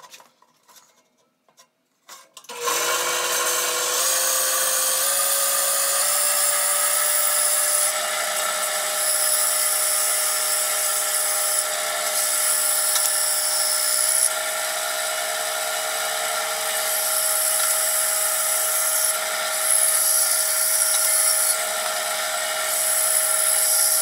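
Bandsaw running and cutting through a glued-up hardwood board of maple, cherry and walnut, trimming its ends square. After a few faint clicks the saw sound starts abruptly about two and a half seconds in, its pitch creeping up over the next few seconds before it holds steady.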